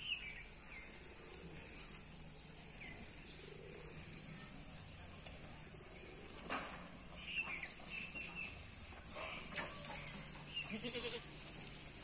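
Boer goats in a pen, with a few faint bleats, mostly in the second half.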